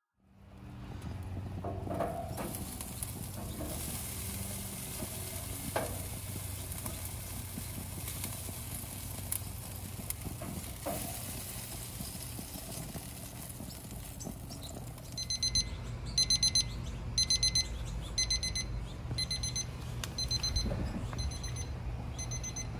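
Chicken leg quarters sizzling on a gas grill grate, with a few light clinks of tongs as they are turned. About fifteen seconds in, a probe thermometer's alarm starts beeping in quick bursts about once a second, signalling that the chicken has reached its 175 °F target internal temperature.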